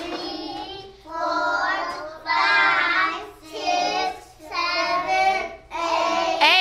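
A group of young children counting aloud in unison, in a slow sing-song chant, one drawn-out number about every second.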